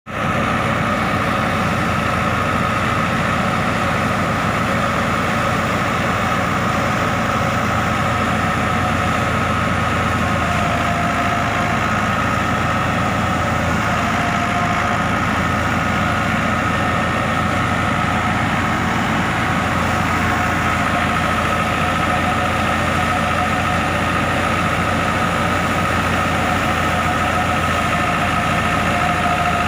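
New Holland Dabung 85 tractor running at a steady speed while it drives a wheat thresher through its PTO, the engine and the thresher making one constant drone with a steady high hum over it, as sheaves of wheat are fed in.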